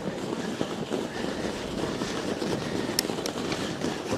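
Mountain bike tyres rolling over crusted snow: a steady grainy crunching noise, with two sharp clicks about three seconds in.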